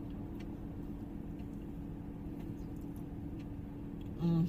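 Steady hum of a car cabin on the move, engine and road noise with a few low steady tones and faint ticks. Near the end a short voiced sound is heard.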